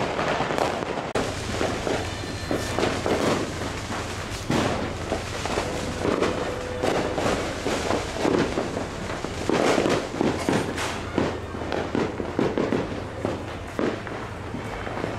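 Fireworks and firecrackers going off without a break: a dense, continuous crackle of many overlapping bangs.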